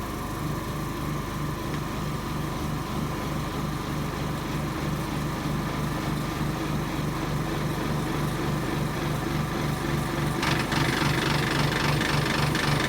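Vacuum pump of an OCA lamination machine running steadily with a low hum, pumping down the vacuum. A hissier noise joins the hum about ten seconds in.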